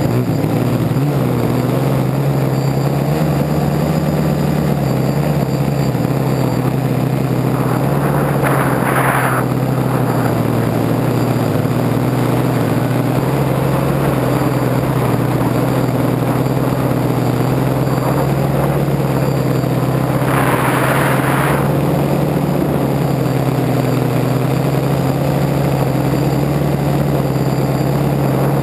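Three-motor electric FPV tricopter in flight, recorded from on board: a steady, close propeller drone that shifts slightly in pitch. Two short rushes of noise come about 9 and 21 seconds in.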